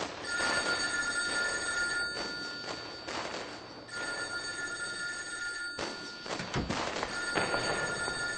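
Telephone ringing three times, about two seconds on and two seconds off, over a loud recording of a naval bombardment played on a stereo. Blasts from the recording come about three seconds in and again just before seven seconds.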